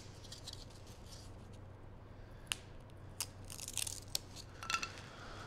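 Paper templates being peeled off cut foam pieces and handled: faint rustling and crackling with a few sharp ticks.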